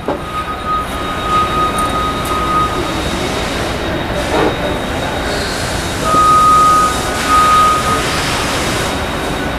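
Steady industrial shop noise of running machinery, with a high-pitched whine that sounds for the first couple of seconds, stops, and returns in the second half, when it is loudest.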